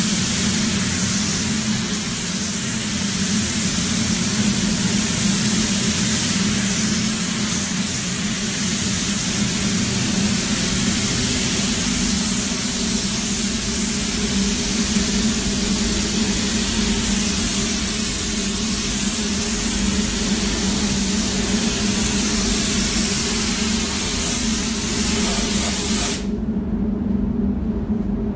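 Compressed-air paint spray gun hissing steadily as it atomises paint, over a steady low hum. The hiss cuts out suddenly near the end, leaving the hum.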